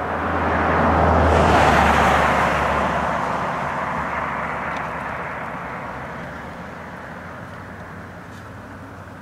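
A vehicle passing by: its even rushing noise swells to a peak about a second and a half in, then fades slowly away over the following several seconds.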